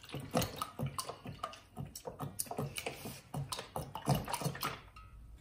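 Whole milk poured from a carton into a steel pot already holding milk, a run of uneven splashes that stops near the end.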